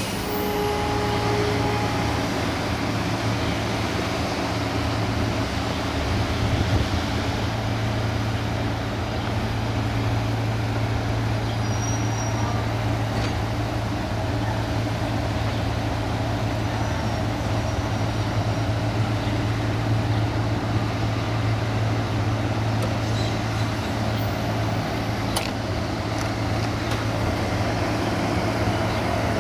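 Steady low drone of a passenger train standing at a station, its diesel locomotive idling. There is a short click near the end.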